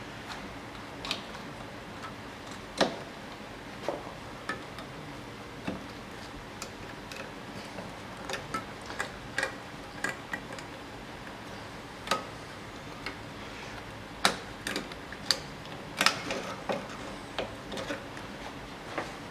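Irregular light metallic clicks and clinks of hand work on a rear drum brake: brake shoes, hold-down pins and springs being handled and fitted. The clicks come singly and unevenly, more often in the second half.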